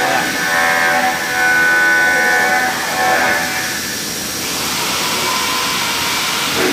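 CHENCAN SG1525 gantry CNC machining center milling an aluminium mold plate: the spindle and end mill give a steady whine of several tones over the hiss of cutting. A little past three seconds in, the tones fade and an even hiss remains.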